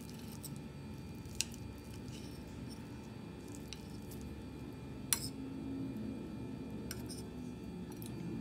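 Metal spoon cutting into a steamed shumai dumpling on a ceramic plate: soft squishing with a few light clinks of the spoon against the plate, two sharper ones about a second and a half in and about five seconds in.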